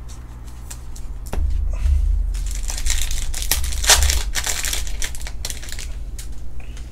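Trading card pack wrapper being torn open and crinkled by hand, loudest and densest in the middle. Before that come lighter clicks and rustles of cards and a plastic sleeve being handled.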